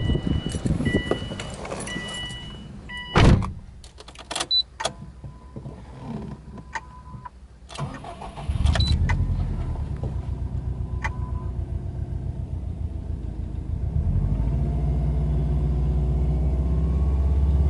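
Subaru Impreza WRX STi's turbocharged flat-four (boxer) engine being started. First come a few seconds of electronic warning-chime beeps and a loud thud of the car door shutting, then clicks of the key. About eight seconds in the engine fires and settles into a steady low idle, which rises and grows louder near the end as the tachometer climbs to around 2,000 rpm.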